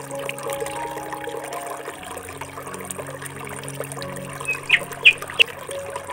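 Soft background music with sustained notes over a steady trickle of water, with three or four short, high chirps in the second half.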